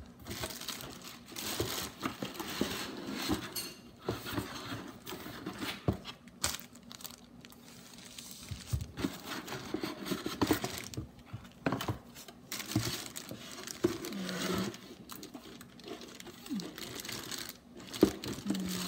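Packaging being handled: plastic and paper crinkling and rustling in irregular bursts, with scattered small knocks.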